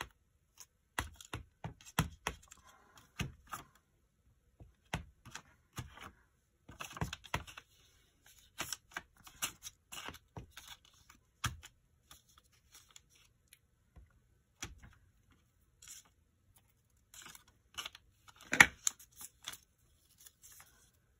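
Scattered light taps and clicks from stamping: a clear acrylic stamp block dabbed on an ink pad and pressed onto a paper envelope, with some paper handling in between. One sharper knock near the end.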